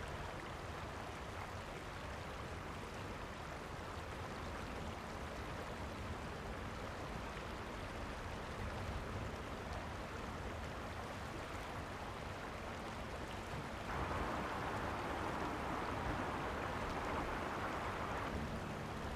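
Steady wash of a flowing river, louder and brighter for about four seconds near the end.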